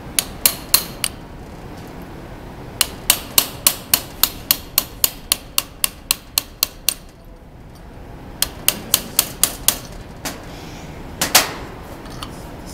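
Hammer striking a brass punch set against a CV joint's inner race, knocking it over to free the ball bearings. The metallic taps come in quick runs of about three a second, with a louder pair near the end.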